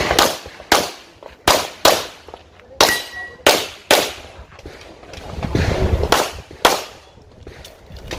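Handgun shots fired in a rapid practical-shooting string: about nine sharp cracks, mostly in pairs a fraction of a second apart, with a pause of about two seconds in the middle.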